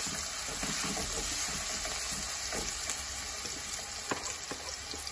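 Sliced onions sizzling steadily in hot oil as they fry to a light brown, with a few faint scrapes and taps of a spatula stirring them in the pan.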